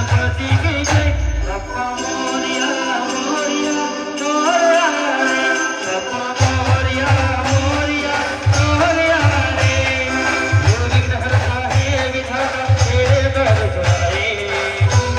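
Marathi brass band playing live: horns carry a melody over a heavy drum beat. The drums drop out about two seconds in and come back in about six seconds in.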